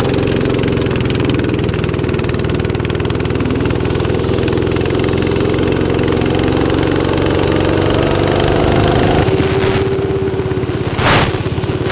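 Small petrol go-kart engines running as rental karts lap the track, a steady engine drone whose pitch rises gently about two-thirds of the way through as a kart speeds up.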